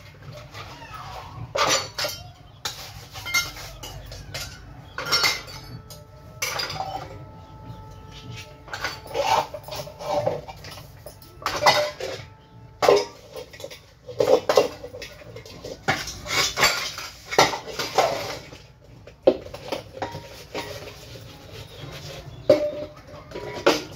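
Metal pots and utensils clattering and scraping against one another as they are scrubbed by hand, in irregular knocks and clinks, with a vessel ringing briefly about six seconds in.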